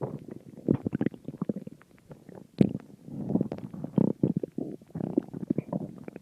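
Stomach growling: irregular gurgles and bubbling rumbles, with a sharper pop about two and a half seconds in.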